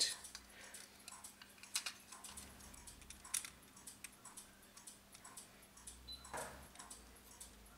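Small, irregular clicks and taps of plastic and metal parts as a quartz clock movement, dial and brass hand nut are fitted together by hand, with a sharper click a little before two seconds in and another a little after three seconds.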